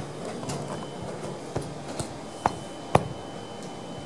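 Room noise with a few sharp taps or clicks, the two loudest about half a second apart in the middle, and a faint steady high-pitched whine that comes in about halfway through.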